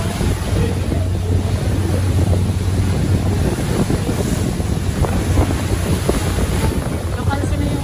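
Wind buffeting the microphone on the deck of a moving ferry, over a steady low rumble from the boat and the rush of sea water.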